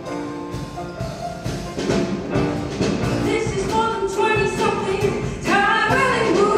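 Show choir singing over an instrumental backing with percussion; the voices swell and glide upward about five and a half seconds in.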